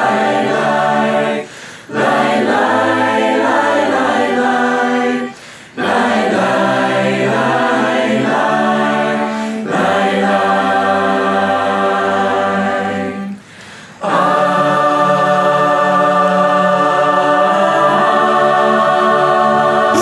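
Mixed-voice a cappella choir of men and women singing in harmony, with no instruments. The song moves in phrases broken by three short pauses, and the last phrase is held as a long sustained chord.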